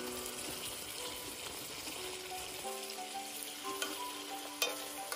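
Ajillo, oil and garlic in a pan, bubbling and sizzling steadily at a full simmer, with a few sharp pops near the end.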